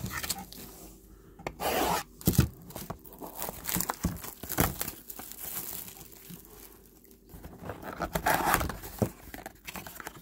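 Plastic shrink wrap being torn and crinkled off a cardboard trading-card box in irregular bursts, then the box's cardboard top flap rubbed and pried open near the end.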